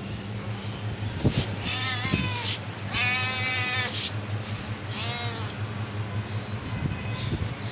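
Domestic cat meowing three times: a short meow about two seconds in, a longer and louder one a second later, and a short one about five seconds in. A steady low hum runs underneath.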